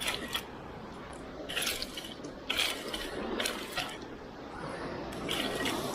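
Seawater splashing and dripping in about five short bursts, over a steady wash of water.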